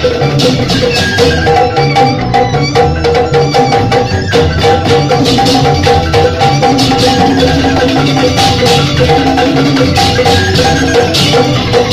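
Balinese joged bumbung gamelan playing: bamboo xylophones (grantang) in fast interlocking strikes over a drum, with a bamboo flute among the ensemble, in a steady, continuous rhythm.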